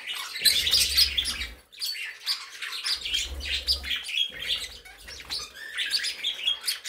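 A room of small pet birds (budgies and other small parakeets) chirping and twittering, with many short high calls overlapping. A low rumble comes and goes three times.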